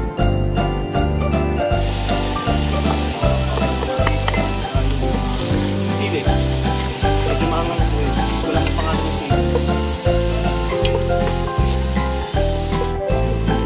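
Chopped onion, tomatoes, ginger, garlic and chilies sizzling in hot olive oil in a stainless steel pot as they are stirred with a wooden spoon. The sizzle comes in about two seconds in, over background music with a steady beat.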